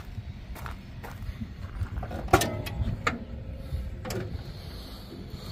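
Car hood being unlatched and raised on a Chevrolet Monte Carlo SS: several metal clicks and clanks, the loudest about two seconds in with a short ring, and a brief falling squeak about four seconds in.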